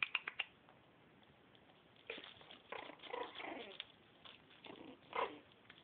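Puppies whimpering, with short falling whines about three seconds in and a brief yelp just after five seconds, over faint scuffling. A few quick clicks at the very start.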